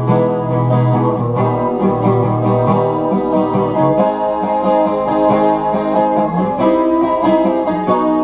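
Steel-string acoustic guitar strummed in a steady rhythm, with no voice.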